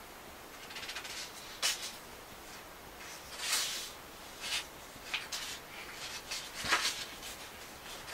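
Magazine pages being handled and turned: a series of short paper rustles and flicks, the loudest about two-thirds of the way through.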